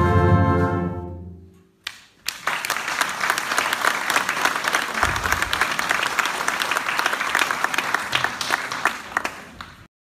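A fanfare band's held closing chord of brass dies away, and after a brief pause the audience breaks into steady applause, which cuts off abruptly near the end.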